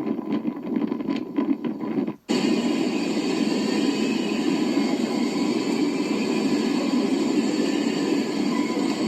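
Steady rushing noise of typhoon wind and rain, with an abrupt cut about two seconds in to a slightly brighter, equally steady rush.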